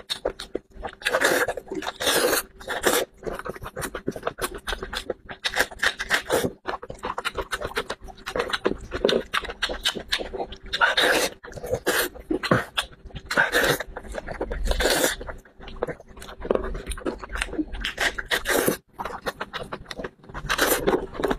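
Close-miked eating sounds of a man chewing and smacking on pieces of sheep's head meat, with quick irregular wet clicks and louder bursts of chewing every second or two.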